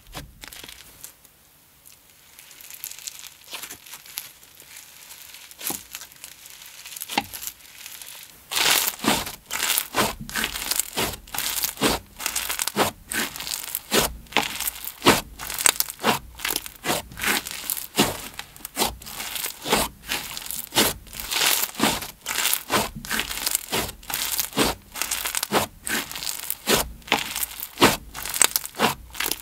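Snowfizz slime being squished and stretched by hand, giving a run of fizzy, sizzling crackles. Faint and sparse for the first several seconds, then dense crackles, several a second, from about eight seconds in.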